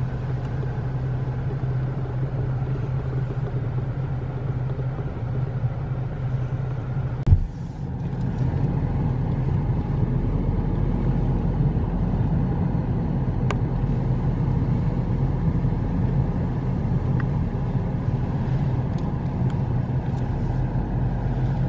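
Steady road noise of a car driving, heard from inside the cabin with the windows closed: a low hum of engine and tyres. About seven seconds in a short knock cuts in, and the rumble then runs a little louder and deeper.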